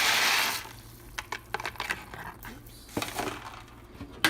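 A rush of noise that cuts off about half a second in, then scattered clinks and knocks of utensils against a pot of boiling water, with one sharp knock near the end.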